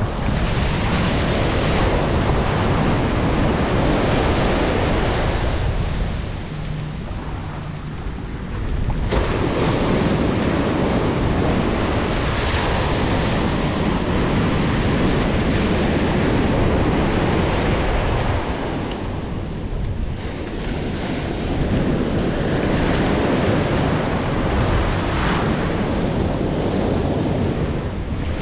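Ocean surf breaking and washing up a shallow beach, surging and easing as each wave comes in, a little quieter about a quarter of the way in and again about two-thirds through. Wind buffets the microphone, adding a low rumble.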